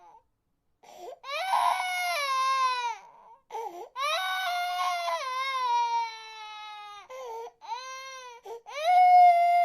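Baby crying: a series of long, high wails, each falling in pitch, broken by short sobs and catches of breath. The loudest wail starts near the end.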